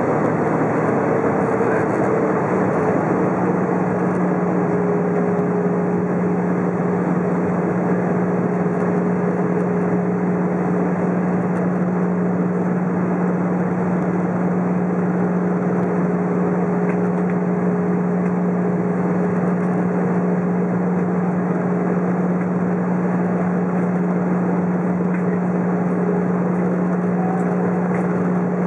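Airbus A320 cabin noise in flight: a steady rush of airflow with the engines' constant low drone and a fainter higher tone over it.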